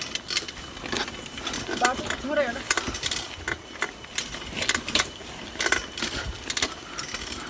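Mountain bike rattling and clicking as it is ridden along a trail, with a short voice about two seconds in.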